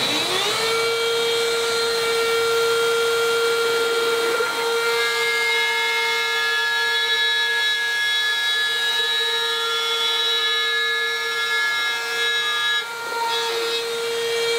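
Parkside PRSA 20-Li A1 cordless rotary drywall cutter soft-starting up to a steady high whine, then running while its bit routes a circle through 30 mm extruded polystyrene foam board.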